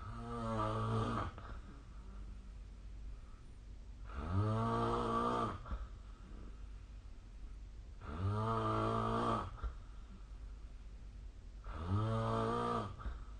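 A sleeping person snoring: four snores, roughly four seconds apart, each lasting a little over a second.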